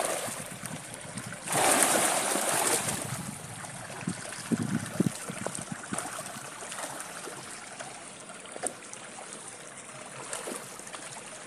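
Milkfish splashing at the surface of a fishpond, a steady light trickling with scattered small splashes and plops. A louder rush of noise comes about a second and a half in and lasts over a second.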